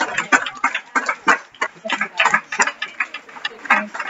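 Scattered, uneven hand clapping from a seated crowd of students.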